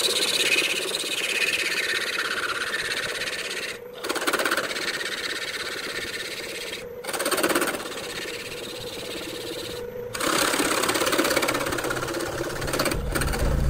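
Wood lathe running while a gouge cuts into the foot of a spinning wood-and-resin vase: a harsh, hissing scrape of the tool on the work over a steady motor hum. The sound is broken by a few short gaps.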